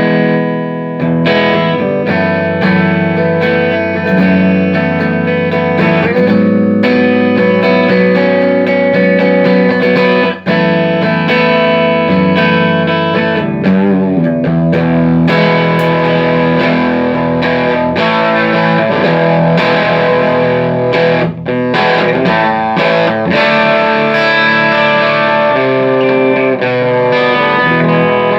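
Electric guitar played through a Fender '57 Custom tweed tube amplifier, a continuous run of chords and notes with brief breaks about ten and twenty-one seconds in. The amp is being sound-tested after its preamp and phase-inverter coupling capacitors, which were leaking DC, were replaced with new Mallory caps.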